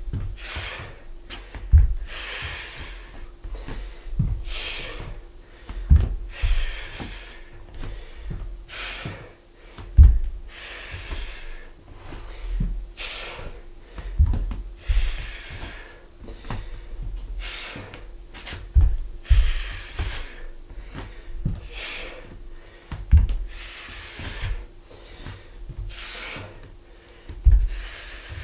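A man breathing hard with effort, short breaths about every second. Bare feet thud on a wooden floor every second or two as he steps through lunges forward and back.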